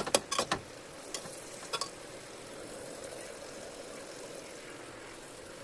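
Food frying in a pan with a steady sizzle. A few sharp clicks of stirring come in the first two seconds.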